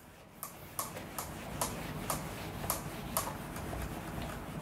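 A whiteboard duster wiping back and forth across the board, each stroke giving a short tick, about two a second, over a low rubbing noise.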